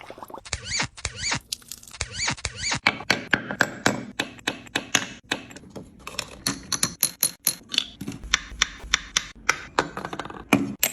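Small hard toy kitchen pieces clicking and tapping together in a quick string of sharp knocks, several a second. In the first few seconds there are also repeated squeaky chirps.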